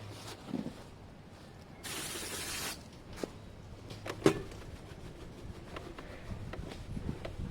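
A short hiss of spray from an aerosol can, lasting under a second, followed by a few light knocks and clicks of handling.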